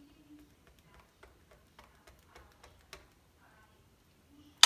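Faint, scattered light ticks and taps of a silicone spatula working herb butter onto raw turkey skin in a foil roasting pan. A sudden loud clatter starts right at the end.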